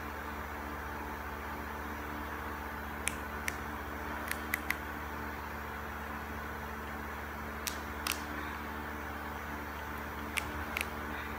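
Steady hum and hiss of an electric fan running in a small room, with a scattering of small sharp clicks in three short clusters.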